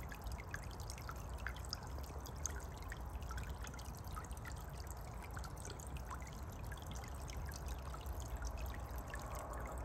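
Small solar-powered tiered fountain running in a birdbath: water spills off its two tiers and splashes into the shallow bowl in a steady trickle, with many small drips and splashes.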